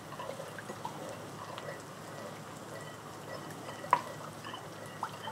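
A metal spoon stirring liquid sauce in a glass measuring cup, with small scrapes and light clinks against the glass, the loudest clink about four seconds in. Onions frying in a pan give a faint steady sizzle underneath.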